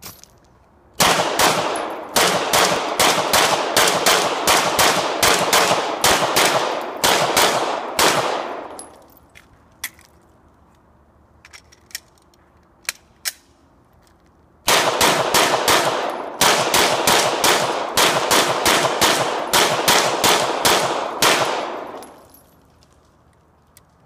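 Semi-automatic pistol fired in two long rapid strings, about two to three shots a second, each string lasting about seven seconds. A few faint clicks come between the strings.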